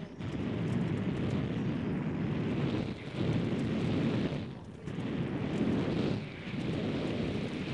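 Low rumbling wind noise buffeting the microphone, coming in four surges of one to three seconds with short dips between them.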